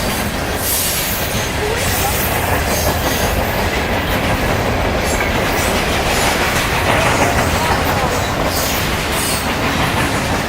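A freight train's cars rolling past with a steady rumble and wheel clatter on the rails.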